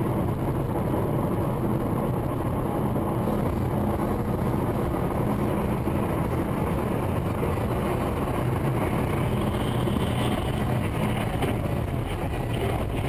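Steady cabin noise of a car cruising at about 100 km/h: engine and tyre noise heard from inside the car.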